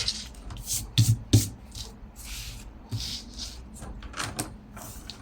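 Cardstock being handled and measured on a work surface: soft paper rustling with several light knocks and taps.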